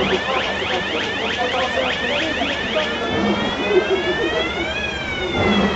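Electronic warning siren sounding a rapid yelp, about four sweeps a second, then switching about three seconds in to a slow wail that rises and then falls.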